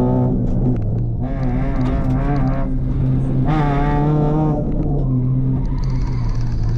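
Rally car engine running hard at high revs, heard from inside the cabin, its pitch climbing and falling back three or four times as the driver accelerates and lifts.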